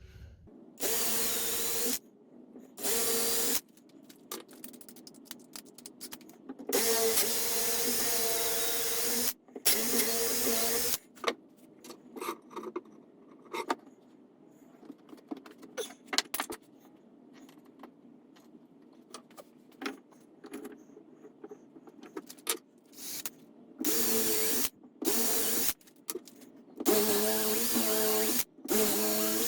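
Electric drill boring 8mm dowel holes in small pieces of wood, run in short bursts of a second or two each, about seven times, with clicks and knocks of the wood and vise being handled in between.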